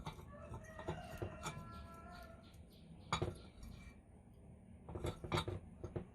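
Metal parts of an antique fire bell clinking and knocking as they are handled. A knock about a second in leaves a short metallic ring of several tones, and there are sharper single clicks about three seconds in and twice near five seconds.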